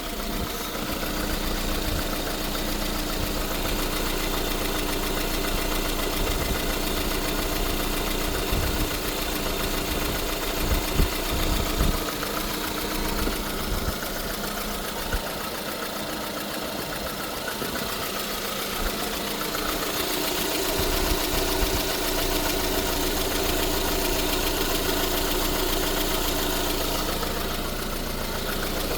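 Lada Kalina's 1.6-litre eight-valve engine idling steadily with an extraneous noise that the owner cannot explain. A few louder knocks come about eight to twelve seconds in.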